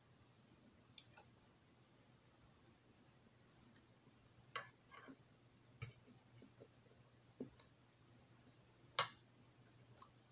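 Quiet eating sounds: a few sharp, scattered clicks, the loudest about nine seconds in, over a faint steady hum.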